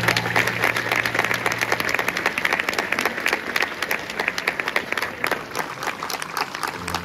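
Audience applauding, a dense run of many hands clapping that eases slightly toward the end. Under the first two seconds a low held note from the end of the song fades out.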